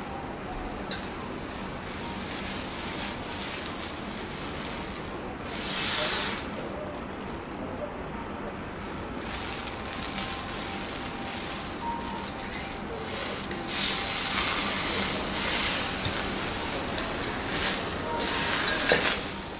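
Steady sizzling hiss from a teppanyaki griddle, swelling about six seconds in and louder over the last few seconds, with a few light clicks of a spoon on a bowl. Near the end, beer is poured foaming into a glass.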